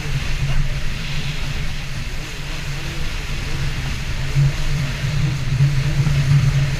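Yamaha EX Sport jet ski's three-cylinder engine running at a steady pitch.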